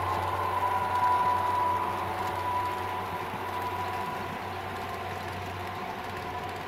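Model diesel locomotives, sound-equipped, passing on a layout with a steady whine and hum. The sound fades about two seconds in as the locomotives move away, leaving the quieter rolling of the passenger cars on the track.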